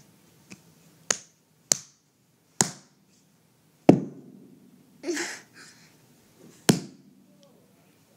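A series of sharp clicks and knocks, about six of them spaced irregularly, the heaviest a thump about four seconds in, with a short breathy puff a second later.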